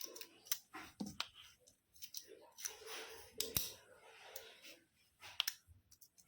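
Scattered sharp clicks and light rustling, irregular and close by, with two louder clicks about three and a half and five and a half seconds in.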